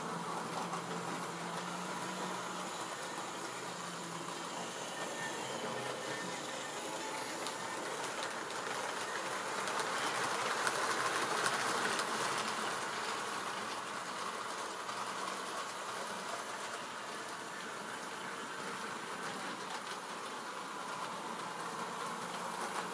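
Electric model railway train hauling coaches along the layout's track. It runs steadily, grows louder as it passes close by around the middle, then fades.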